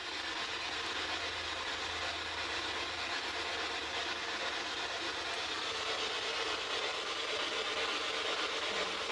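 Spirit box sweeping through radio stations, giving a steady hiss of static with no clear words coming through.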